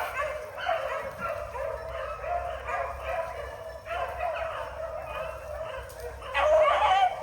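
A young rabbit-hunting hound baying in a string of repeated cries while running a rabbit's track, the cries loudest near the end.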